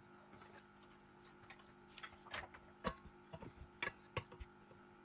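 Olive oil and chopped garlic faintly crackling in a pan: scattered sharp pops and ticks, most of them in the middle seconds, over a steady faint hum.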